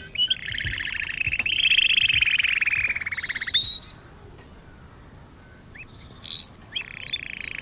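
Birds calling: a rapid trill lasting about three seconds with short high chirps over it, a brief lull, then more chirps and the trill starting again near the end.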